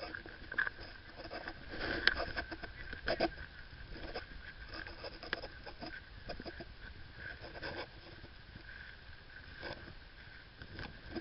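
Muffled rustling and scattered knocks of gear and movement against a body-worn camera in a waterproof housing, with a faint steady tone throughout.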